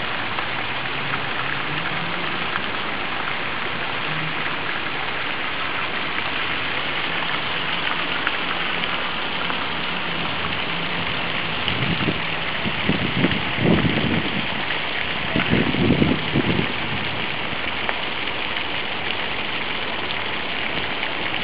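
Garden fountains splashing steadily into their stone basins, an even hiss of falling water. A little past the middle come two spells of louder low rumbling.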